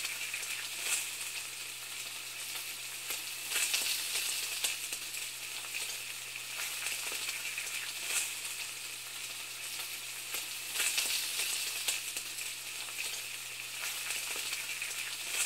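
Steady crackling, sizzling hiss, even in level and peppered with small crackles, over a faint low hum.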